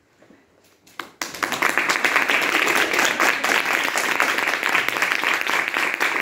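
An audience applauding. Quiet at first, then dense, steady clapping that begins about a second in.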